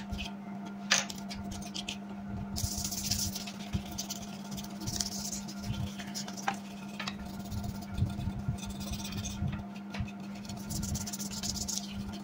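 Toothbrush bristles scrubbing dust off a laptop motherboard in short bursts of brushing strokes, with a few light clicks of the board being handled. A steady low hum runs underneath.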